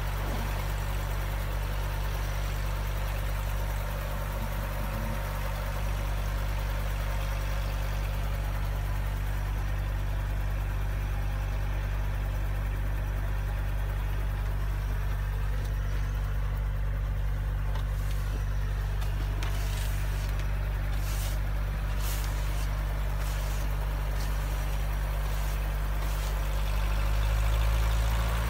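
Small helicopter's engine and rotor running steadily at idle while it warms up before departure. Near the end it grows louder and rises a little in pitch as it is brought up in power.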